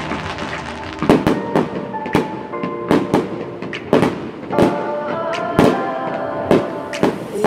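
Fireworks shells bursting in the sky, about ten sharp bangs coming every half second to a second from about a second in, over music playing.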